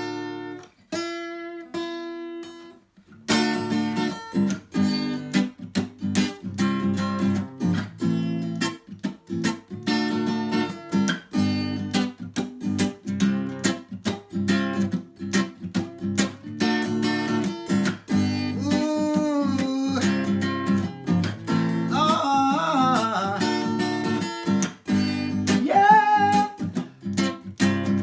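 Acoustic guitar playing the opening of a song: a few plucked notes, then steady rhythmic strumming and picking from about three seconds in.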